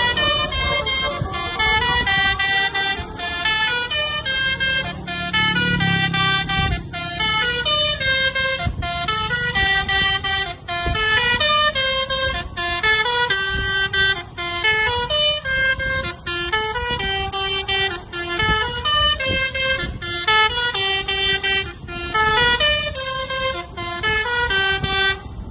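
Telolet basuri multi-tone bus horn playing a melody: a long run of short stepped notes that change pitch about every half second, with brief breaks between phrases, over road and engine rumble.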